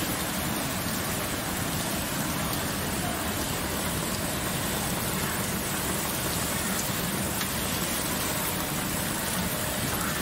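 Candy cane production line machinery running, with its conveyor carrying canes out: a steady, even noise with no distinct knocks or rhythm.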